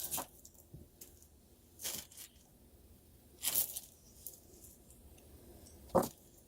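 Three brief rustling, handling noises of loose bead jewelry being picked through, about two, three and a half and six seconds in, the last the loudest, with quiet between.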